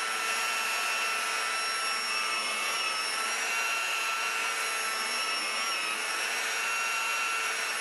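A small electric motor running steadily: a high-pitched whine over a constant hiss, holding the same pitch throughout.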